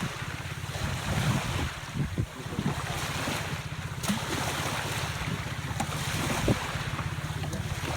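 Small motorboat's engine running steadily with a fast, even low pulse, over wind noise on the microphone and water. A few short knocks sound about two seconds in and again near the end.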